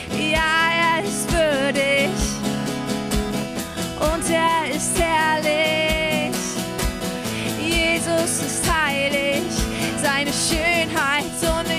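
Worship song: a singing voice held and bending over instrumental backing with a steady beat.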